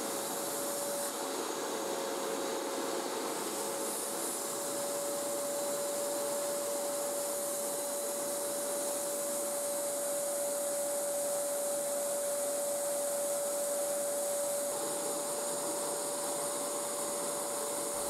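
Vacuum cleaner running steadily, a rush of air with a steady whine. Its hose is pressed to a wooden model steam engine, which its suction drives in reverse.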